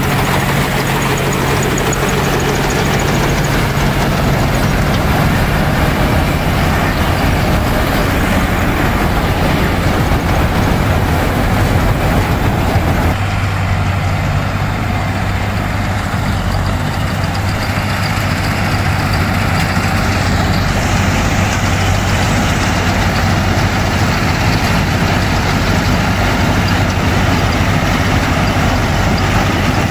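John Deere 5310 tractor's diesel engine running steadily, driving a tractor-mounted paddy harvester. Its note drops a little lower about 13 seconds in.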